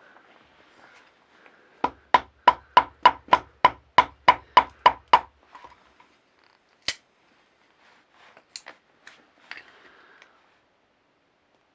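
Sharp wooden knocks as small sticks are split into kindling for a wood stove: about a dozen quick knocks in a fast run, then a single knock and a few light clicks as the split pieces are handled.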